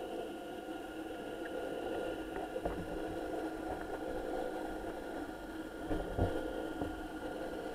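Muffled underwater ambience picked up through a camera housing: a steady drone of several held tones over a low hiss, with a few low thumps, the strongest about six seconds in.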